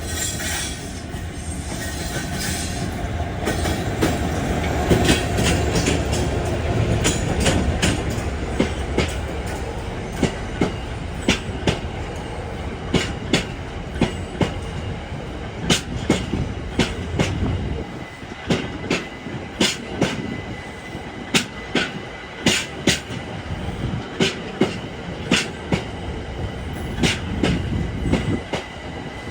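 A train passing on the rails: a heavy rumble that swells over the first few seconds and drops away about 18 seconds in, while the wheels click over rail joints in quick pairs, a pair every second or so.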